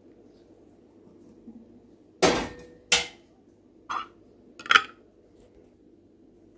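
Four sharp clunks of a glass canning jar and its screw lid knocking on a table as the jar is handled and closed. The first clunk is the longest, and the others follow at intervals of about a second.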